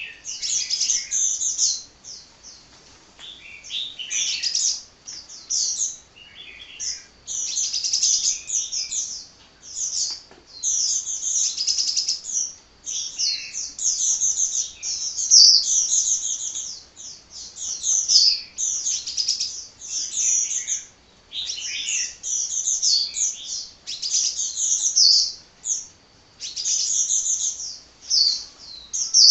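A sunbird singing a fast, high twittering song without let-up, in rapid bursts of chirps lasting a second or two, with only short breaks between them.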